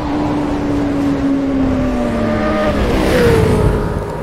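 Motorcycle engine sound effect: a steady engine note that slowly slides lower in pitch, then drops and changes about three seconds in under a rising whoosh, and fades near the end.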